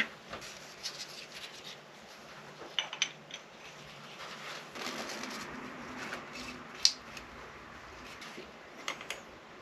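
Steel rocker arms being slid onto a Honda Beat rocker shaft and handled: light metal-on-metal clinks and rubbing, with a few sharp clicks, the sharpest about seven seconds in.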